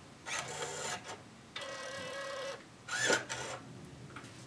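Brother P-touch PT-E550W handheld label printer printing a label: its tape-feed motor whirs in two bursts of about a second each, with a short sharper sound about three seconds in.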